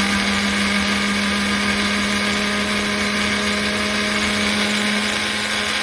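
Electric blender motor running at one steady speed, blending the ingredients in its jar: a constant, loud hum with an even whir above it.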